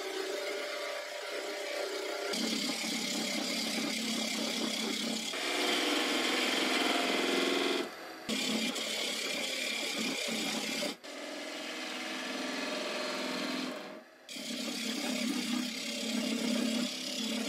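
Skew chisel cutting along a wooden spindle spinning on an Axminster AW355 wood lathe: a steady rasping hiss of shavings peeling off. The sound comes in several short stretches that change abruptly every few seconds.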